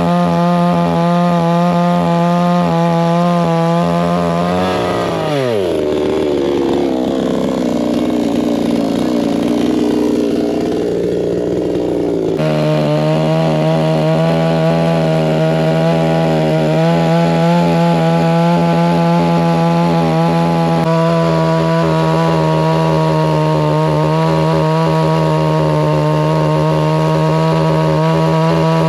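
Two-stroke chainsaw running at high revs. About five seconds in its pitch falls steeply as the throttle drops toward idle. At about twelve seconds it is abruptly back at high revs and holds steady.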